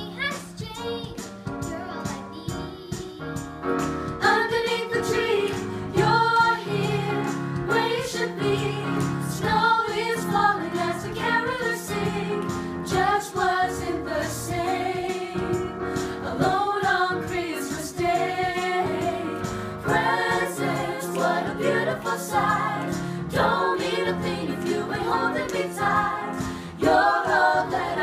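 A family group of women's and children's voices singing a song together in unison, over steady held notes from an electronic keyboard.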